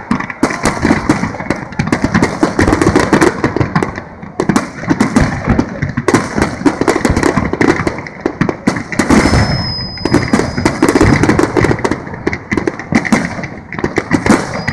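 A large fireworks display: a dense barrage of aerial shells bursting in quick succession, bang on bang with continuous crackle.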